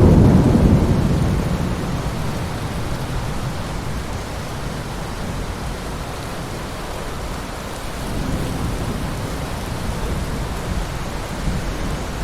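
Heavy rain falling steadily, with a rumble of thunder dying away over the first couple of seconds and a weaker low rumble swelling again about eight seconds in.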